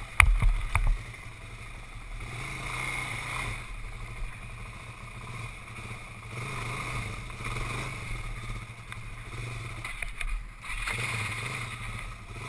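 Suzuki sport quad's engine idling steadily while the machine is stuck against a rock. Sharp knocks about a quarter second in and again near one second in are the loudest sounds.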